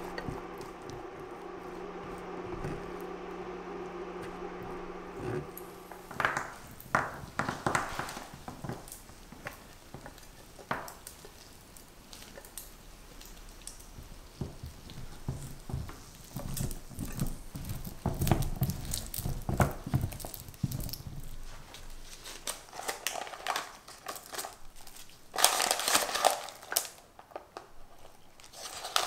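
Hazelnuts stirred with a silicone spatula in hot sugar syrup in a steel saucepan, over a steady hum. Then scattered clicks and crackles as the caramelised hazelnuts are handled and tipped onto a silicone baking mat. Near the end, loud crinkling of plastic film around rolled tart dough.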